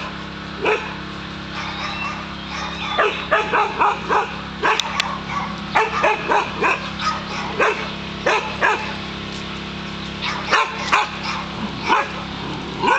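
Dog barking repeatedly: short, sharp barks in irregular runs, several a second at times.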